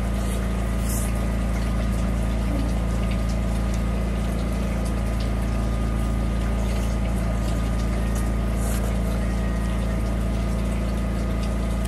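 A steady low mechanical hum with an even whirring noise over it, unchanging throughout.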